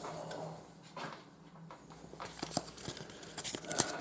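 Trading cards and a foil pack wrapper being handled: soft rustling with scattered light clicks and taps, busier in the second half.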